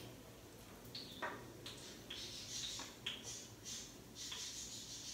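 Light kitchen handling noises at a counter: scattered faint clicks and knocks mixed with short rustling or scraping sounds.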